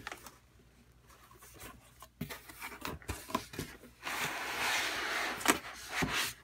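Cardboard box and packaging being handled: scattered clicks and light scrapes, then a dense rustle of the foam end caps and wrapping as the server is lifted out, from about four seconds in to about six, with a couple of sharp knocks.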